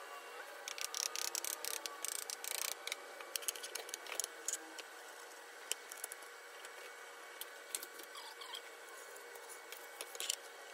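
Clicks and light knocks of wooden boards and clamp hardware as glued, biscuit-jointed Spanish cedar boards are pushed together and clamped, over a faint steady hum. The clicks come thickest in the first few seconds, then more sparsely.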